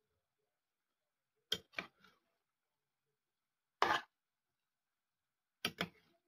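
Metal utensil scraping and knocking against a stainless-steel pan as beef strips and broccoli are stirred and tossed. It comes in short strokes: three quick ones about a second and a half in, a single longer scrape about four seconds in, and three more near the end.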